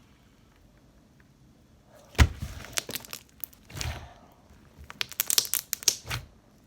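Handling noises from slime and its plastic container: a sharp knock just after two seconds in, then bursts of crinkling and crackling.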